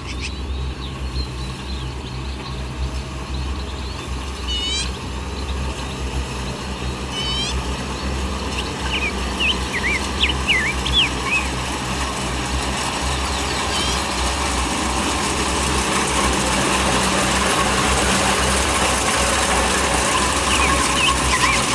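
Kubota DC-70 Plus combine harvester's diesel engine running steadily with the churning of its machinery, growing louder over the second half. Small birds chirp briefly several times over it.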